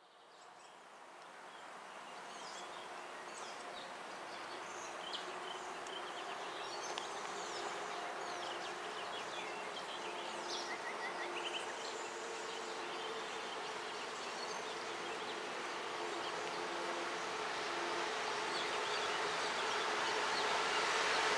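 Distant passenger train hauled by an EP08 electric locomotive approaching along the track: a steady rushing noise that grows louder toward the end. Under it runs a steady buzzing hum, with scattered short high chirps in the first half.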